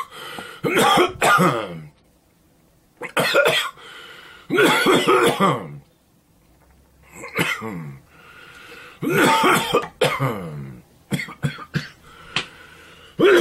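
A man coughing in about six fits of a second or so each, with quiet breaks between them.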